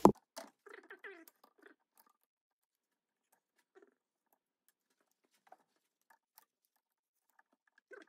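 A sharp metal click at the start, then sparse light clicks and scrapes of a pick and pliers working at a connecting rod cap in an opened engine crankcase.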